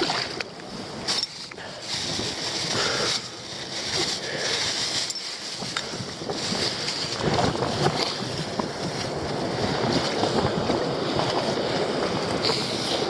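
Wind gusting across the microphone over waves washing onto a rocky shore, the noise rising and falling unevenly.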